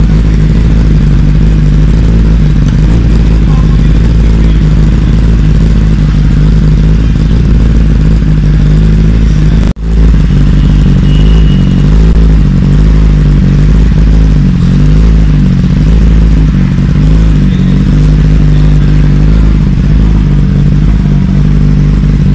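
Kawasaki ZX-10R's inline-four engine idling loud and steady through a short exhaust can, with a brief drop-out about ten seconds in.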